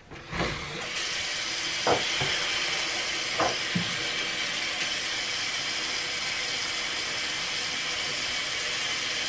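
Bathroom sink tap turned on and running steadily into the basin, with a couple of light knocks from things handled at the sink.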